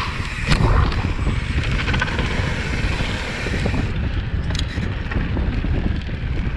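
Mountain bike rolling fast over a dirt trail: wind buffeting the ride camera's microphone over tyre noise and the rattle of the bike on bumps, with a sharp knock about half a second in.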